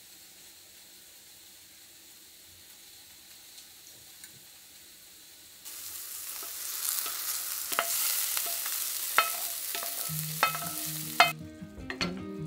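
Rice for a risotto sizzling in a stainless steel frying pan over a gas flame, with sharp clicks and pops. The first half is much quieter, only a faint hiss and a few soft taps. Near the end the sizzle drops away and music notes begin.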